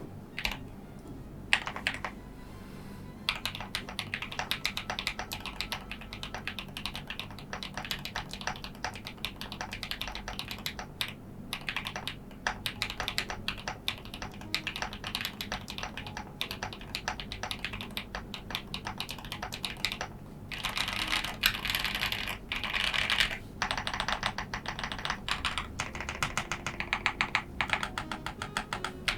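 Typing on a Basketweave Alice-layout mechanical keyboard with lubed Akko Vintage White linear switches: a steady run of keystrokes that gets faster and louder from about 20 seconds in.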